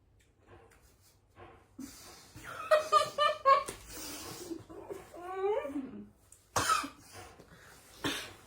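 Girls coughing and laughing in reaction to a very sour candy: a quick run of laughter about a third of the way in, a breathy wavering vocal noise, then two sharp coughs near the end.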